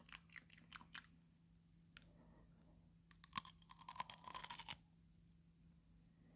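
Cucumber being chewed: a few crisp crunches in the first second, then, after a lull, a denser run of crackling crunches from about three seconds in that stops short near five seconds.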